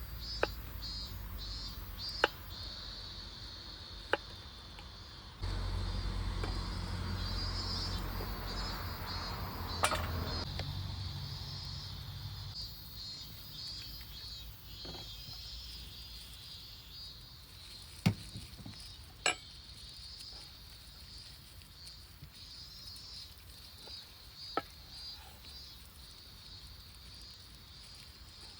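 Insects chirring steadily at a high pitch in a fast pulsing trill, with a handful of sharp single cracks scattered through it and a low rumble for several seconds early on.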